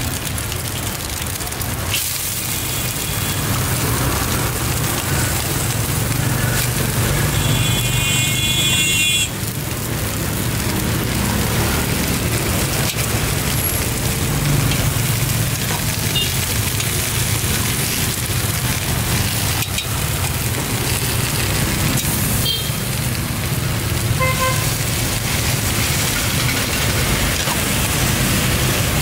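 Stir-fry sizzling in a hot steel wok over a burner, with now and then a scrape or knock of the metal ladle. Motorbike traffic runs behind it, with a brief high horn-like tone about a third of the way in.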